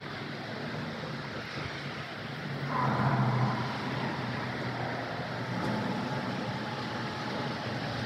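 Steady road traffic noise from vehicles crossing a road bridge, with one vehicle passing louder about three seconds in.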